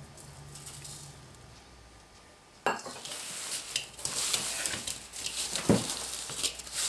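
Spices being added to ground pork in a bowl: a sharp knock about two and a half seconds in, then hissy sprinkling and clattering with several clicks of containers and utensils.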